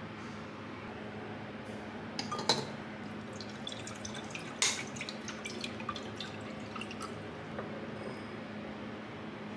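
Kombucha poured from a glass bottle over a large ice ball in a glass tumbler: a few glass clinks, a sharp one about four and a half seconds in, then small liquid ticks and drips. A steady low hum runs underneath.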